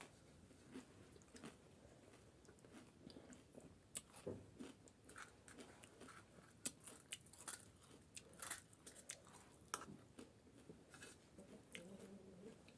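Faint close-up chewing with scattered short crisp crunches, several a second at times: chatpate, a spicy Nepali puffed-rice snack, being eaten.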